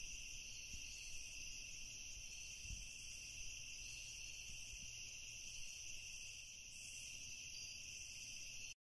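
Faint, steady chorus of crickets trilling continuously, cutting off abruptly near the end.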